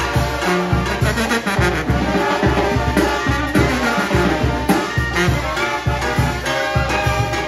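Live Mexican banda playing: trumpets, trombones, clarinets and a sousaphone carry the tune over a steady beat on bass drum and drums.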